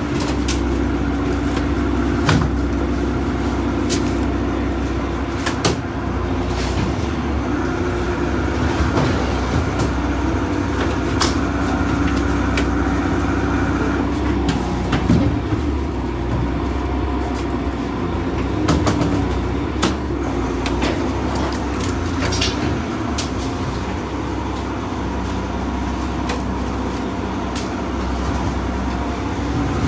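Lobster boat's engine running steadily, with scattered clicks and knocks from the handling of lobsters and traps on deck.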